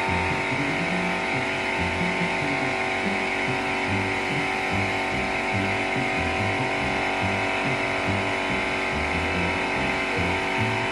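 A compressor running steadily with a constant hum and hiss, while music with a moving bass line plays along.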